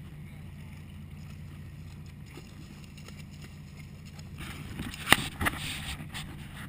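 Boat engine running with a steady low hum. About four and a half seconds in, water splashes and sloshes along the hull, with two sharp knocks just after.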